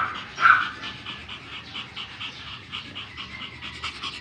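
Pomeranian panting quickly and steadily, about four or five breaths a second, while tied during mating. One short, louder sound comes about half a second in.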